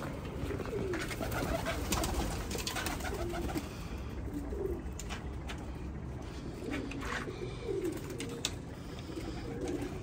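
Domestic pigeons cooing inside a loft: several low, rolling coos repeating every few seconds, with scattered light clicks and scuffles.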